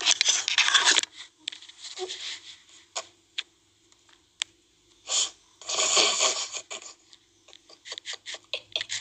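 A phone being handled rustles loudly for about the first second. Then come scattered light clicks and two short, noisy breaths from a sleeping French bulldog, about five and six seconds in.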